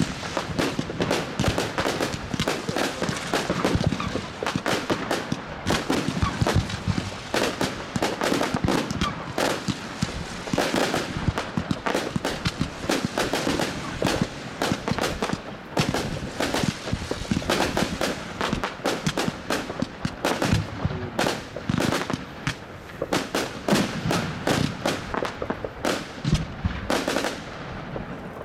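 Consumer firework cakes firing in rapid succession: a dense, unbroken string of shots and bursting bangs with crackle, many overlapping.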